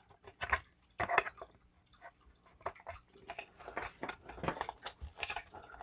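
Hard plastic marker storage trays being handled and fitted together: irregular clicks, knocks and light scrapes of plastic on plastic, the loudest knocks about half a second and a second in.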